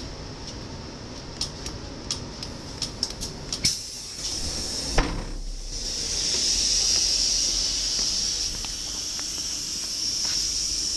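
Passenger door of an NS ICMm Koploper train opening after the door button is pressed: a run of sharp clicks, a thump about five seconds in, then a loud steady hiss of air that carries on to the end.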